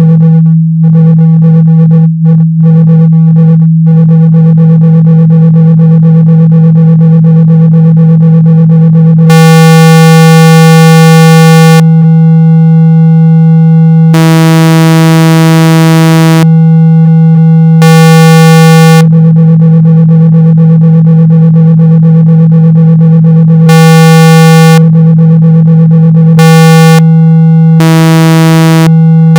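Speaker-cleaning tone: a loud, steady low hum of about 162 Hz, played to shake water and dust out of a speaker. Over it a buzzier, higher tone switches on and off every few seconds, some pulses lasting a second, others two or three.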